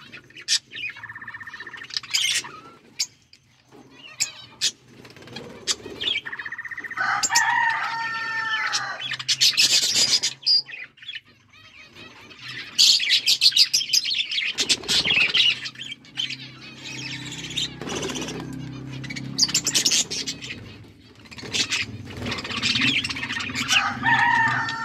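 Budgerigars chirping and chattering in a busy, varied warble, with frequent sharp clicks and rustling among the calls.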